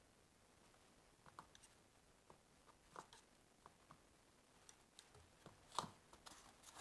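Faint, scattered clicks and taps of small handling as the cap with its dauber is unscrewed from a can of ABS cement and the can is set down, with a sharper knock near the end.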